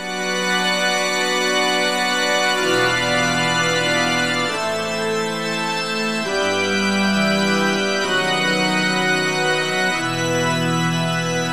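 Background music of sustained, organ-like chords that change about every two seconds.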